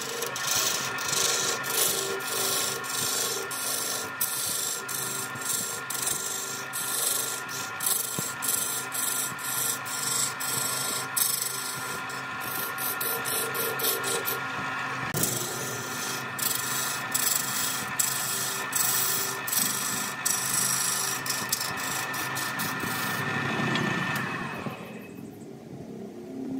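Wood lathe running with a steady motor whine while a turning tool scrapes the spinning red wood in dense repeated strokes, with a short break midway. Near the end the cutting and the whine fall away.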